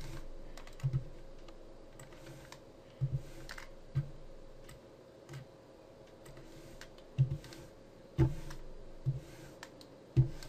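Scattered clicks of a computer keyboard and mouse, about ten spread unevenly, some in quick pairs, over a faint steady hum.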